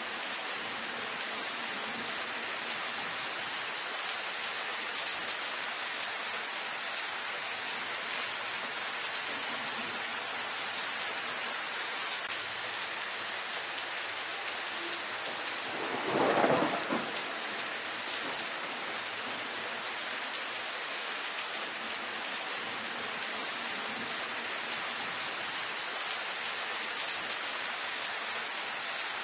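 Steady rain falling on dense foliage, an even hiss of drops. About halfway through, one brief, louder burst of noise lasting about a second stands out above the rain.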